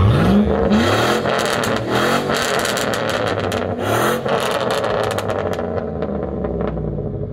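A pickup truck's engine revved about four times through a newly fitted exhaust pipe, each rev climbing and dropping back, then settling lower and fading toward the end.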